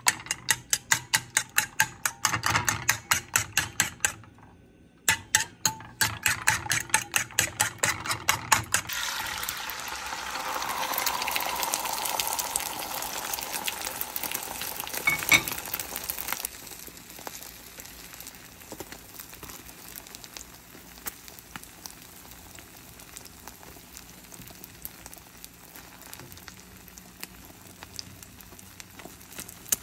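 A fork beats raw eggs against a bowl in quick, even strokes, about five a second, pausing briefly once. From about nine seconds in, beaten egg sizzles loudly in a hot nonstick frying pan, with one sharp click partway through. After about sixteen seconds the sizzle settles to a quieter steady frying.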